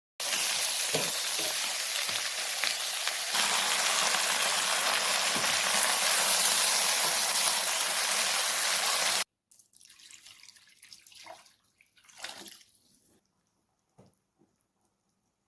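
Water running steadily from a kitchen tap, cutting off abruptly about nine seconds in, followed by a few faint, brief handling sounds.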